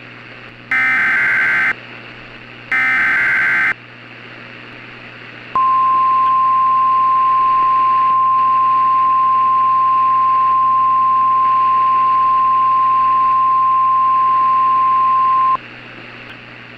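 NOAA Weather Radio emergency alert signal: two roughly one-second screeching bursts of SAME digital header data, then after a short pause the 1050 Hz warning alarm tone, held steady for about ten seconds and cut off sharply, over radio hiss. The tones herald a tornado warning.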